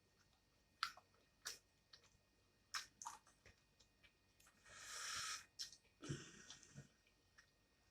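Faint wet mouth clicks and chewing of a person eating, with a short hiss of breath-like noise about five seconds in.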